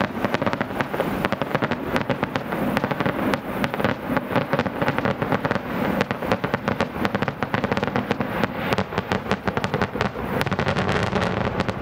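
Fireworks display: a rapid, continuous barrage of bangs and crackles, many a second.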